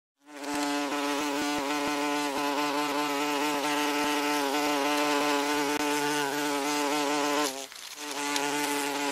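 A wasp's wing buzz, close and steady, with a slightly wavering pitch. It starts abruptly, drops briefly about seven and a half seconds in, then picks up again.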